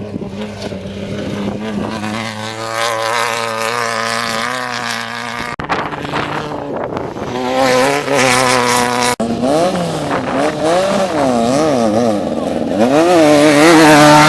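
Off-road race buggy engines, air-cooled VW type, revving hard. Abrupt changes about five and nine seconds in mark edit cuts between cars. In the later part the engine pitch rises and falls again and again as the throttle is worked.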